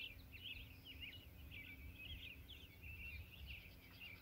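Faint songbird singing: a continuous run of quick, warbling chirps and trills, over a low rumble.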